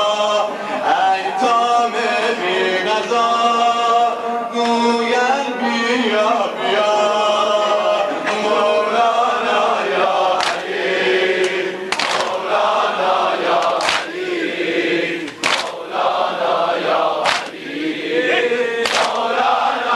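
A crowd of men chanting a mourning lament together. From about halfway in, their chest-beating (sineh-zani) comes through in unison, a sharp slap of hands on bare chests about every second and a half.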